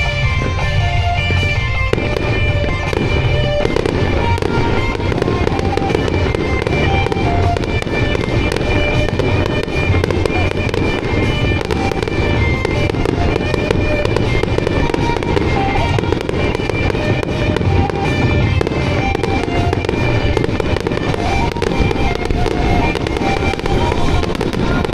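Dense barrage of aerial firework shells bursting and crackling without pause, a music starmine, with a pop song playing underneath. The low rumble of the bursts thickens about two seconds in.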